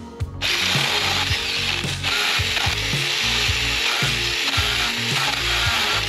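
Small 24-volt cordless handheld pruning chainsaw switching on about half a second in and running steadily, its chain rattling as it cuts into thin woody bush stems.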